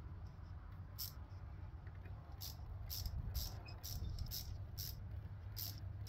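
Small ratchet wrench clicking in short strokes, roughly two a second, as a nut on a battery cable terminal stud is tightened.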